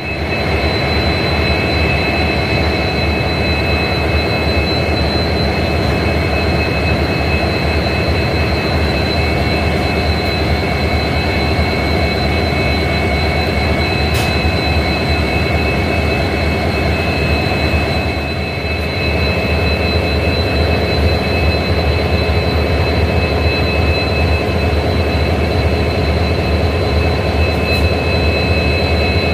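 Two EMD WDP4D diesel-electric locomotives idling together, their turbocharged two-stroke 16-cylinder EMD 710 engines giving a steady low hum with a high steady whine over it. The level dips slightly for a moment about two-thirds of the way through.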